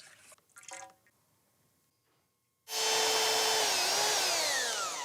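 A power-tool motor starts abruptly about halfway through, runs at speed for about a second, then winds down with a steadily falling whine as it is released.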